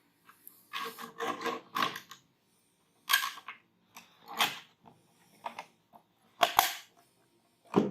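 A CPU cooler fan being set onto a motherboard and pressed down to lock in place: a run of short plastic and metal clicks and scrapes, with a sharper click about six and a half seconds in.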